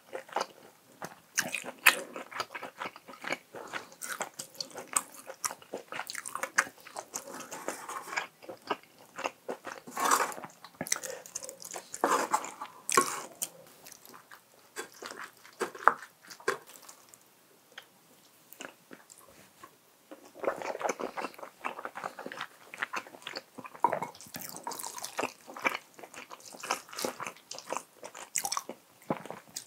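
A person eating close to the microphone: irregular chewing and biting with crunchy bites, and a short lull about two-thirds of the way through.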